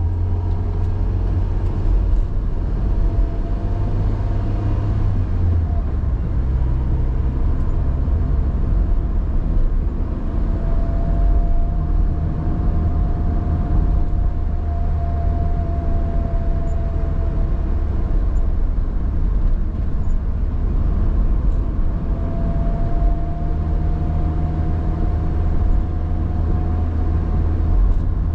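Car driving on a city street, heard from inside the cabin: a steady low rumble of engine and tyre noise. A faint whine comes and goes twice.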